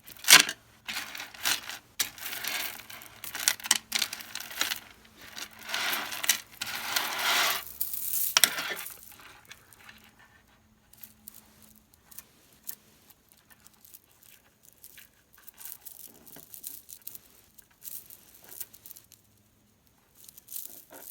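Gemstone bead strands being handled: plastic packaging crinkling and stone beads clicking together, busy for about the first nine seconds, then lighter, scattered clicks.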